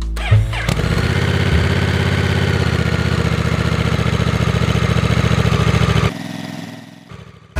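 Honda Hawk 11's 1,082 cc liquid-cooled parallel-twin engine idling steadily, heard at the exhaust. The engine sound comes in about a second in, holds an even pulsing beat with no revving, and drops off suddenly about six seconds in, then fades away.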